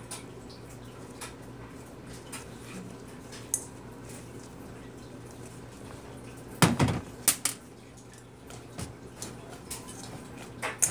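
Scattered light clicks of plastic beads dropping out of slime into a stainless steel mixing bowl. About two-thirds of the way through comes a brief loud clatter of the metal bowl being moved and knocked down on the table.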